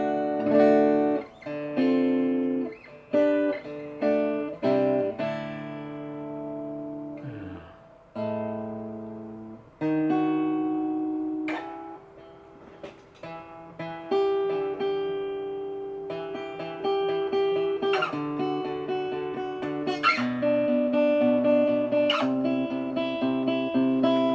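Freshly repaired Egmond archtop acoustic guitar fingerpicked: plucked chords and single notes ringing and decaying, in short phrases with brief pauses between them.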